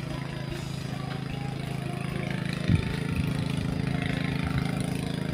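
A small engine running steadily at an even pitch, with a single knock about halfway through.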